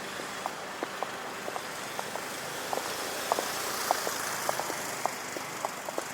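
Footsteps on hard pavement, shoes clicking at a steady walking pace, a little under two steps a second. Traffic noise swells through the middle and eases off again, like a vehicle passing.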